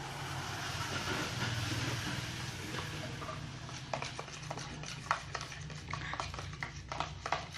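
A spoon stirring colour into slime glue in a bowl, with irregular light scrapes and clicks from about three seconds in, over a steady low hum.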